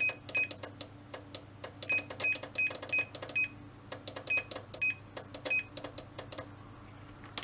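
Rapid, irregular clicking from an energised automotive fuse-box relay. Over it, a multimeter's continuity beeper gives short, broken chirps in scattered clusters. The relay's contact connects only for moments instead of staying closed: a bad, burnt contact.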